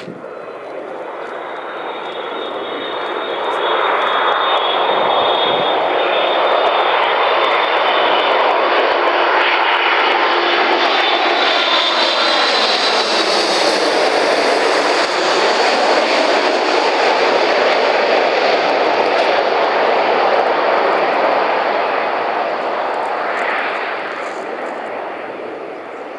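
Boeing 787 twin-jet airliner on final approach passing low overhead. Its engine noise swells, stays loud as it goes over with a high whine sliding down in pitch, then fades away.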